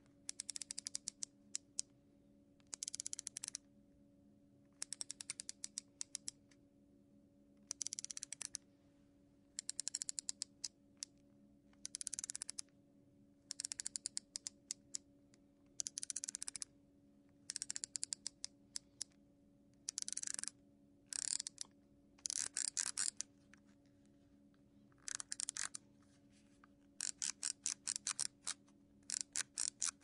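Electric razor clicking in repeated short bursts of rapid clicks, each about half a second to a second long, with pauses between. Near the end the bursts give way to an even run of separate clicks, about three a second.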